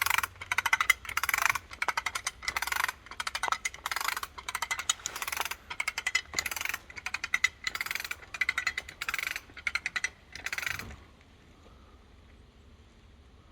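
A hand ratchet clicking through repeated quick strokes, about two a second, each a rapid run of pawl clicks. It stops about eleven seconds in.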